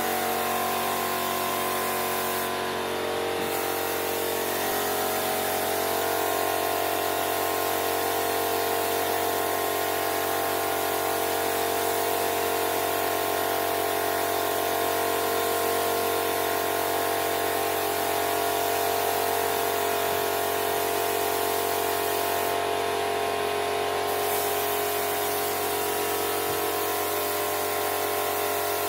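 Compressed-air spray gun hissing steadily as it sprays wood polish onto a headboard, over the constant hum of its compressor motor. The highest part of the hiss eases off briefly twice, once about three seconds in and again in the last quarter.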